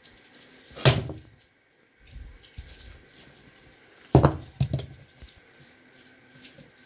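Hard knife blows chopping into a coconut: one sharp strike about a second in, then three quick strikes around four seconds in.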